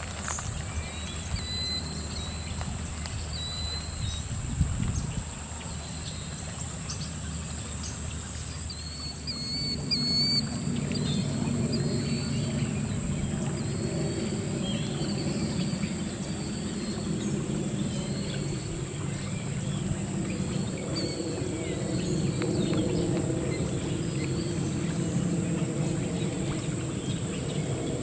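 Riverbank ambience: a steady high-pitched insect drone with short, repeated bird-like chirps over it, and a low rushing of river water that grows louder about ten seconds in.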